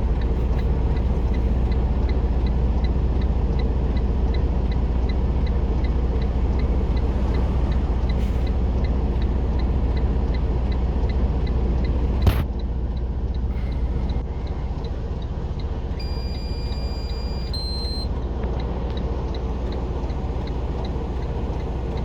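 Semi truck's engine idling, a steady low rumble, with a faint regular ticking about three times a second. About halfway through a sharp click comes and the rumble drops to a lower level, and a few seconds later a short two-note electronic beep sounds.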